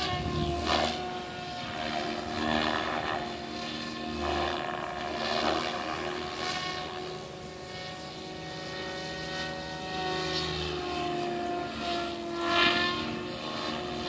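Goblin 700 radio-controlled helicopter in flight, its rotor and drive sound a continuous drone of several tones that drifts up and down in pitch as it manoeuvres, swelling louder a few times and loudest briefly near the end.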